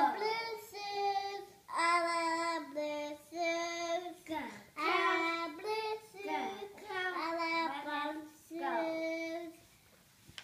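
A young child singing a tune in short phrases of held notes, falling quiet about a second before the end.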